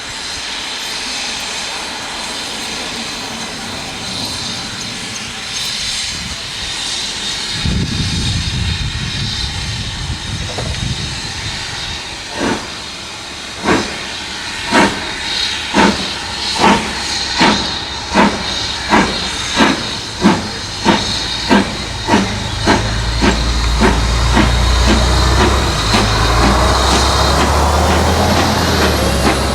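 BR Standard 4 tank steam locomotive pulling away: steam hissing steadily, then a deep rumble comes in, and from about twelve seconds in the exhaust chuffs begin, slow at first and quickening steadily as the engine gathers speed.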